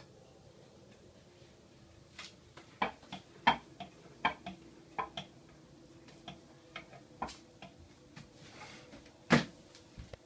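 Dishes and cutlery clinking and knocking against each other and the sink as a toddler washes up: about a dozen light, irregular knocks, the loudest about nine seconds in.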